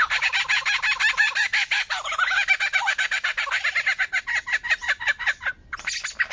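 A bird calling in a rapid, continuous run of short sharp notes, many to the second, which breaks off briefly near the end and resumes for a moment.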